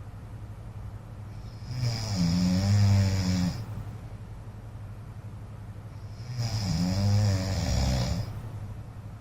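A man snoring: two loud snores about four and a half seconds apart, each lasting about two seconds, its pitch dipping and rising.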